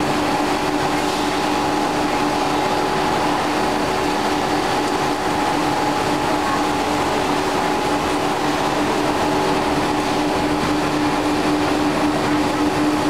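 Ribbed rubber belt-cutting machine running: a drum turns the belt sleeve past rotary cutting discs, a steady hum carrying a strong low tone and a fainter higher one that do not change.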